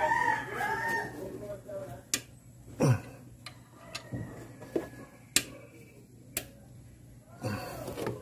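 A rooster crowing ends in the first second. After it come sharp clicks and knocks, roughly one a second, from hand tools working on the engine.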